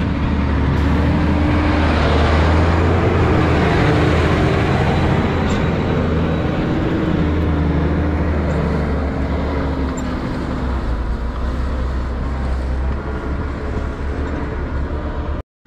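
Farm tractor's diesel engine running steadily as it drives up and packs a pile of chopped grass silage, its note wavering slightly. The sound cuts out abruptly near the end.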